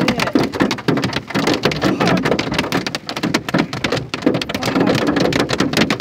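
Golf-ball-sized hail hitting the roof and body of a car, heard from inside the cabin: a dense, unbroken clatter of hard impacts.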